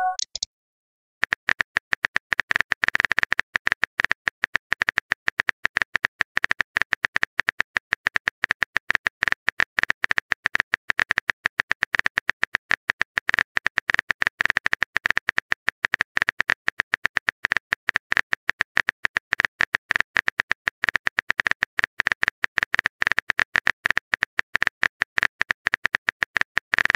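Keyboard typing click sound effect of a texting-story app, a rapid, even run of taps that starts about a second in as a message is typed out.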